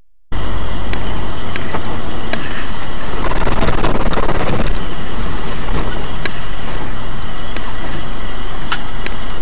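A vehicle driving on a wet road, loud and steady with engine rumble and tyre noise. It starts abruptly about a third of a second in, swells briefly around four seconds in, and has scattered sharp clicks.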